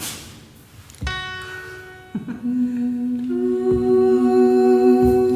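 Women's voices humming long held notes without words. They enter one after another, a higher note about a second in, then a lower one and a middle one, building a sustained chord as the song begins.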